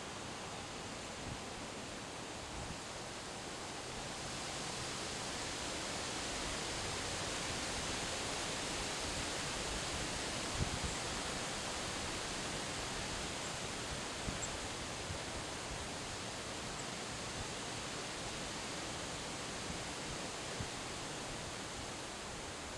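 Autumn windstorm: strong wind rushing steadily, with rustling. A gust builds a few seconds in and eases slightly near the end, with a few brief low thumps along the way.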